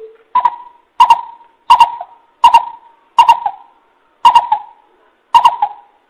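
Coucal calling: a series of seven short, pitched hoots at a steady pace of roughly one every 0.7 to 1 s, each starting sharply.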